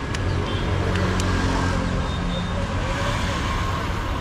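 Road traffic: a motor vehicle's engine running close by, a steady low drone that eases off near the end, over general street noise.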